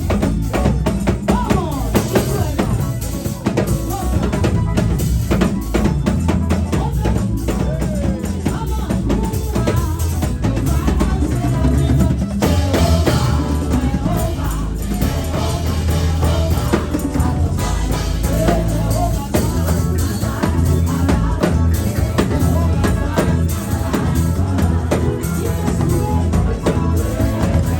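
Live gospel praise music: a band with a drum kit playing a dance beat, loud and continuous, with voices singing over it.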